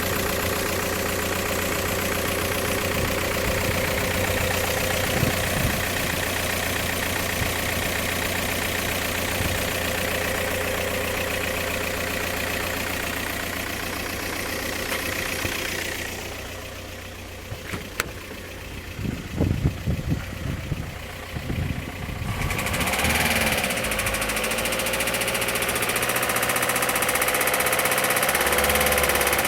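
VW Passat B6 1.9 TDI four-cylinder diesel engine running, with a knock that the owner suspects comes from a damaged rod or main bearing after the oil pump failed. It runs steadily, goes quieter for several seconds past the middle with a few low thumps, then comes back and rises near the end.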